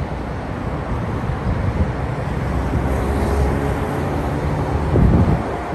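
Low, steady rumble of a landing Airbus A380-861's four Engine Alliance GP7200 turbofans, mixed with road traffic passing close by. The sound swells toward the end, with a louder surge about five seconds in.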